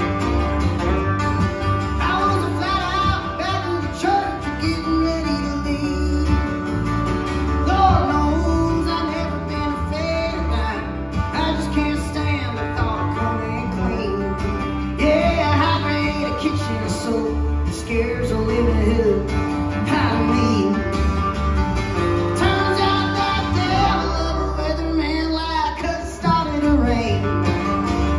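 Live country song played by acoustic guitar, lap-played slide guitar and electric bass, with gliding slide notes over a steady bass line.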